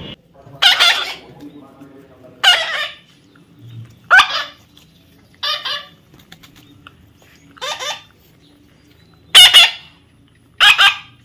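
A bird, likely a chicken or other fowl, giving short loud calls again and again, seven in all, each about half a second long and one to two seconds apart.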